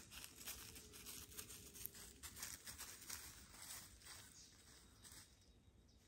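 Faint, irregular rustling footsteps through bamboo forest undergrowth, dying away about five seconds in.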